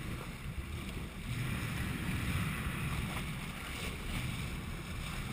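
Sea water splashing and rushing beside a moving boat, with a steady low rumble and wind buffeting the microphone.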